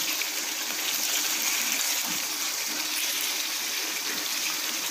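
Beef pieces with ginger-garlic paste frying in oil in a pot, sizzling steadily as they are stirred.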